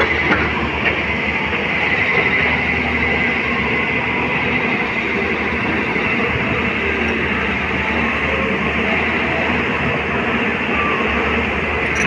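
Steady, unbroken mechanical running noise with a faint high whine, like a motor or machine running.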